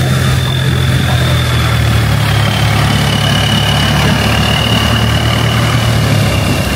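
Boat engine running loud and steady on the canal, with a deep hum and a high whine that slides slowly lower in pitch.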